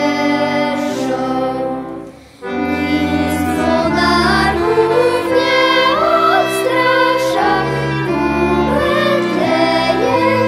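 A children's choir of girls sings a folk song, accompanied by accordion, clarinet, violin and cello. The music drops away briefly about two seconds in, then picks up again.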